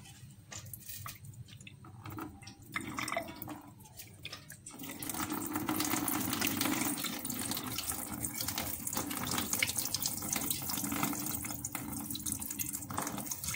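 Kitchen tap water splashing into a container in a steel sink as omena (small dried fish) are rinsed by hand. A few light clicks and splashes at first, then about five seconds in the tap runs at full flow with a steady rush of water.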